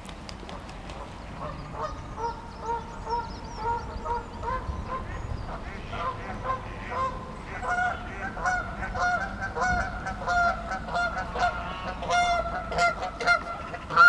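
Geese honking in a steady series of calls, about two a second. A second goose with a different pitch joins about halfway through, so the honks overlap and grow louder toward the end.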